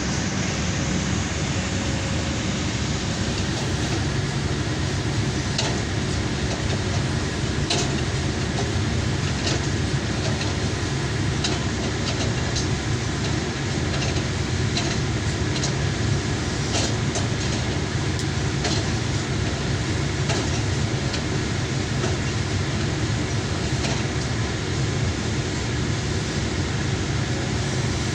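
Hydraulic excavator running steadily under work, engine and hydraulics making a constant low drone, with scattered light metallic clicks and clanks.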